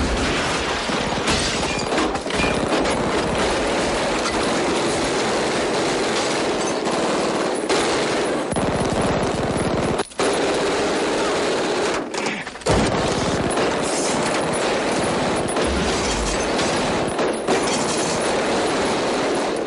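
Film shootout gunfire: rapid, near-continuous shots from handguns, breaking off briefly about halfway and again a little later.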